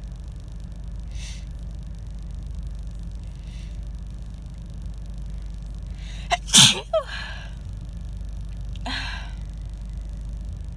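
A woman's single loud, harsh sneeze from a chest cold, a little past halfway, with a short catch of breath just before it. Fainter breaths come before and after.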